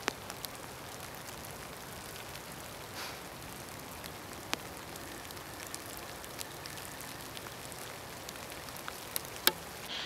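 Steady outdoor hiss with scattered small ticks and clicks, and one sharper click near the end.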